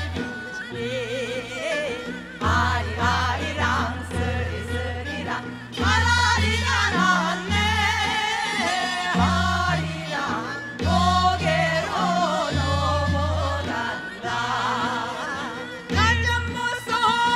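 Women singing a Korean folk song (minyo) into microphones in a wavering, ornamented melody, over instrumental accompaniment with a low bass line that steps from note to note.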